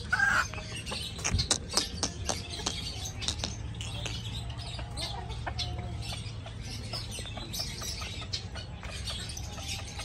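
Chickens clucking in an aviary, with many sharp clicks in the first few seconds over a steady low hum.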